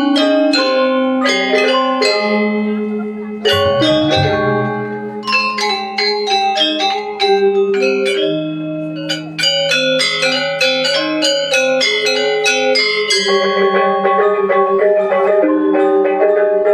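Balinese gamelan gong ensemble playing: bronze metallophones ring out in rapid struck notes over sustained tones, with a deep gong stroke about three and a half seconds in.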